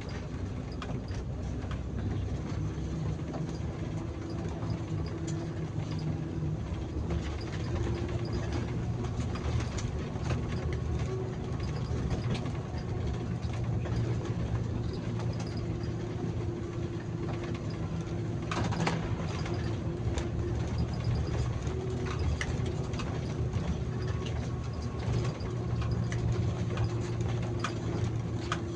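Bus engine running steadily while driving, heard from the driver's cab, with road rumble and occasional light clicks and rattles; one louder knock about two-thirds of the way through.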